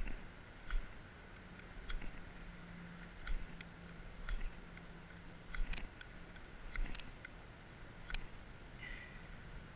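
Gerber fire steel, a ferrocerium rod, scraped with its striker over grass tinder. About eight short, sharp scrapes come roughly once a second at an uneven pace as the sparks are thrown at tinder that has not yet caught.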